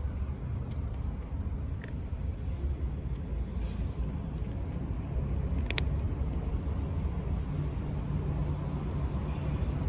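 Steady low outdoor rumble. Two brief scratchy rustles, one a few seconds in and one near the end, and a single sharp click midway.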